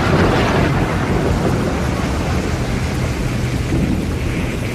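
Tornado winds making a loud, dense rushing roar with a deep rumble underneath; the sound cuts off abruptly at the end.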